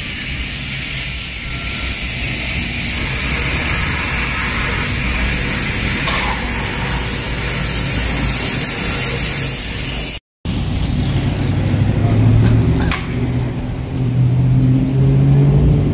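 Street traffic: vehicles passing with engines running, a steady noise that drops out briefly about ten seconds in, then a louder low engine hum that swells twice near the end.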